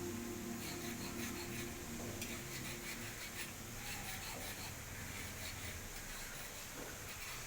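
Hand scraping strokes on the steel blade of a folding knife during finishing work: a quiet, irregular scratchy rubbing.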